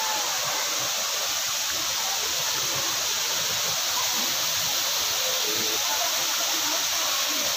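Waterfall: a steady, even rush of falling water, with faint voices in the background.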